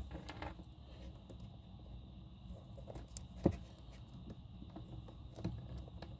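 Faint handling noise of electrical wires and a small plastic wire connector being fitted, light rustles and ticks with one sharper click about three and a half seconds in.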